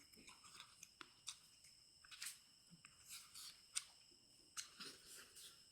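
Near silence broken by scattered faint clicks and smacks of someone eating and chewing, with a handful of short crackly sounds a second or so apart.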